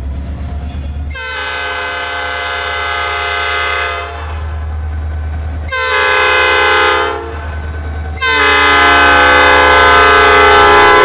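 Nathan AirChime P5 five-chime air horn on a Norfolk Southern EMD GP40-2 locomotive, sounding three blasts: a long one, a short one, then another long one. The passing diesel locomotives rumble steadily underneath.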